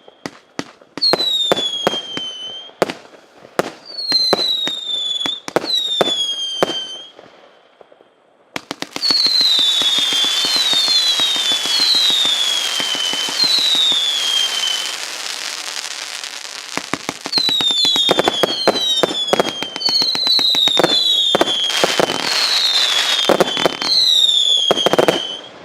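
A 258-shot, 0.8-inch firework cake firing rapid volleys of sharp shots, many trailed by whistles that fall in pitch. After a short lull about 8 seconds in comes a dense stretch of crackling with whistles, then fast shots and whistles again.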